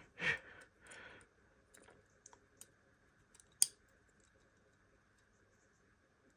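Small tapping and clicking of tiny model-locomotive parts being handled and fitted by hand, with one sharp click about three and a half seconds in. Two short breaths near the start.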